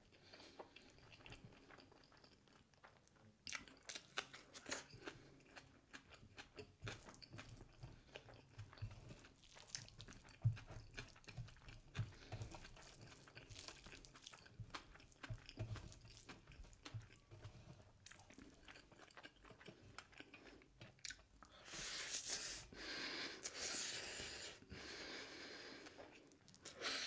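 Close-miked chewing of a mouthful of rice and egg curry eaten by hand: many small wet clicks and smacks of lips and tongue. A louder, denser stretch of chewing comes near the end.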